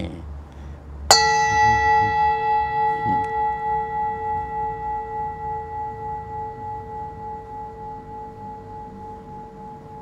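Metal singing bowl struck once about a second in, then ringing on with a slowly wavering hum that fades gradually.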